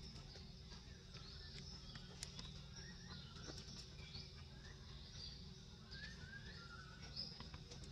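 Faint outdoor bird chatter: small birds chirping over and over in short, high-pitched notes, with a few lower sliding notes about six seconds in, over a steady low rumble.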